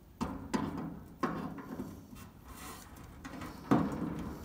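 Channel-lock pliers clicking and knocking against a metal fitting on a swamp cooler as it is worked loose: a few sharp, irregular clicks.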